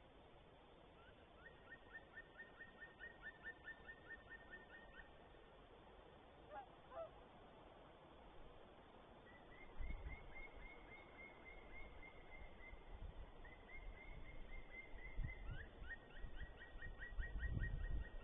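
A bird calling in runs of short, high, evenly spaced notes, about four or five a second, with brief pauses between runs. A low rumble joins from about halfway.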